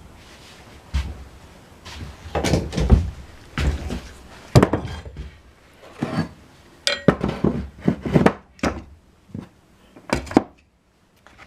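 Tools being handled and set down: an irregular run of knocks, thunks and light clatter, with no rotary tool running.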